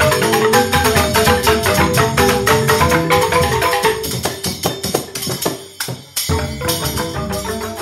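Balinese joged bumbung bamboo gamelan playing a fast instrumental piece: dense, rapid interlocking strikes on tuned bamboo keys. About halfway through the playing thins out and almost stops for a moment, then picks up again.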